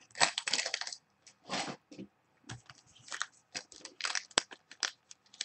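Trading-card pack wrapper crinkling and crackling as it is picked up and handled, in short irregular rustles.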